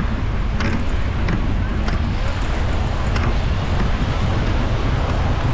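Wind buffeting the microphone of a cyclist riding along the beach: a steady, loud low rumble with a hiss over it. A few faint ticks come through, about a second in and again near the middle.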